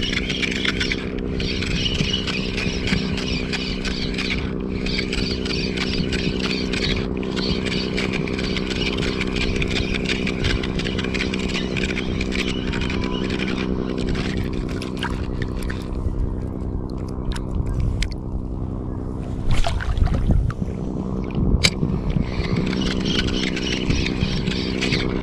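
A steady motor drone at one constant pitch. Over it runs a higher whirring hiss that drops out briefly now and then and fades away for several seconds past the middle. A few sharp clicks and knocks come near the end.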